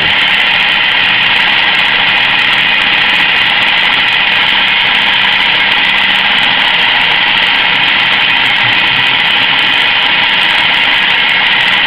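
Centre lathe running with a steady, even machine noise as its cutting tool turns down a metal bar, reducing its diameter.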